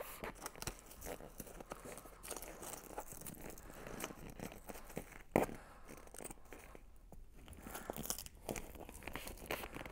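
Headrest seat cover being pulled snug and its Velcro strap fastened by hand: faint crinkling and crackling with many small scattered clicks, and one sharper click about five and a half seconds in.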